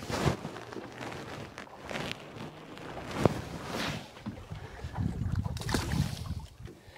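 Wind buffeting the microphone over water sloshing at a small boat's side, with a single sharp click a little past three seconds in. About five seconds in, a flounder let go from fish grippers splashes into the water.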